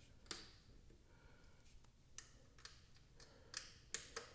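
A few faint, scattered clicks and taps of hands handling metal parts at a motorcycle's oil cooler mount.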